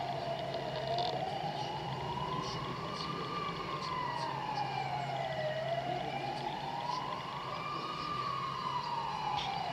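A siren wailing, its pitch sliding slowly up and down about once every five seconds, over a steady low hum.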